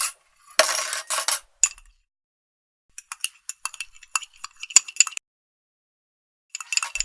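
Hard objects clinking: a short clattering crash about half a second in, then a quick run of sharp clinks, a pause of about a second, and more clinks near the end.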